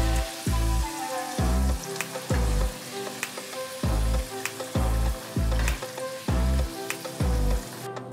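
Green beans sizzling as they fry in oil in a wok, under background music with a deep recurring beat; the sizzling stops just before the end.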